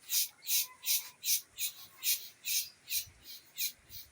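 Rhythmic animal call: a high, hissing pulse repeated evenly about two and a half times a second, some pulses weaker than others, with a faint short whistle about half a second in.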